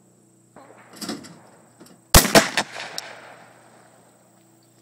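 A single shotgun blast at a flying clay target: one loud, sharp bang about two seconds in, a second crack right behind it, and a ringing tail that fades over about a second. About a second before the shot there is a softer, short rattling burst as the clay target is thrown from the trap house.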